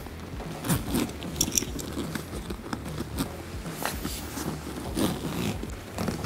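Zipper on a rooftop tent's heavy vinyl travel cover being pulled closed in short, uneven pulls, with the stiff cover scraping as it is handled.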